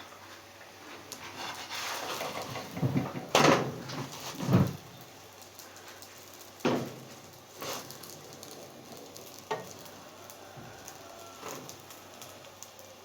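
Rounds of bread dough cooking in a hot pan, with a faint sizzle and the knocks and clatter of handling them in the pan; the loudest knocks come about three and a half and four and a half seconds in, with lighter ones later.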